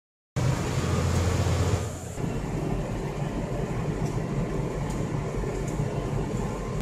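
Case IH Magnum 7140 tractor's six-cylinder diesel engine running while driving, heard from inside the cab. The sound cuts in after a short silence and drops somewhat about two seconds in.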